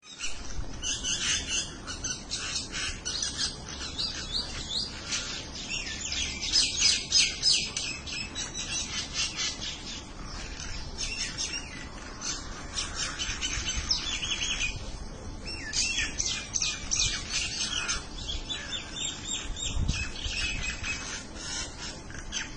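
A flock of mynas chattering together, many calls overlapping without a break.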